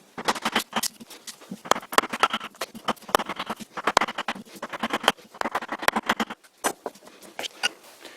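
A rapid, irregular run of clicks and rattles, for about six seconds, then a few separate clicks near the end, like parts being handled and adjusted on a lathe.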